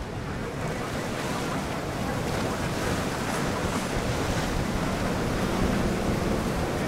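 Wind buffeting the microphone over the steady rush of choppy water and boat wake, with motor yachts running past.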